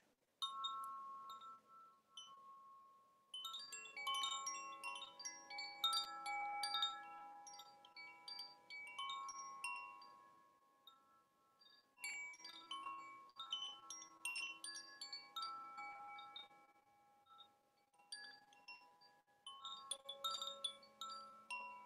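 Wind chimes ringing in waves of overlapping, sustained bell-like tones. The ringing thins out into quieter lulls a few times before new strikes pick it up again.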